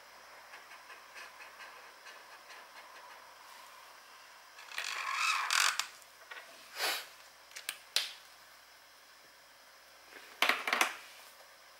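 Stationery being worked on a desk: faint scratching of writing on paper, a louder scrape about five seconds in, then several sharp clicks and taps, with a louder double click and rustle near the end.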